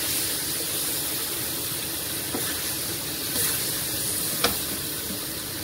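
Steamed tempeh and spice paste sizzling in hot oil in a pan, a steady hiss. A single sharp click sounds about four and a half seconds in.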